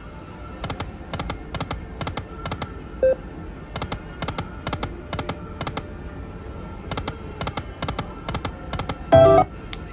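Lightning Link Tiki Fire video slot machine spinning over and over: each spin lands as a quick run of clicking reel-stop sounds, a new run every few seconds. There is a short, loud electronic chime near the end.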